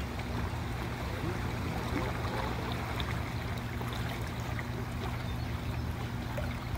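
River water rushing steadily over rocks, an even hiss with a low rumble underneath.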